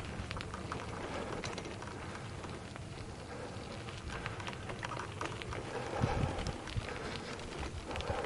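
Bicycle tyres rolling over a loose gravel track: a steady crunching crackle with many small ticks from stones, and a few louder knocks over bumps around six seconds in.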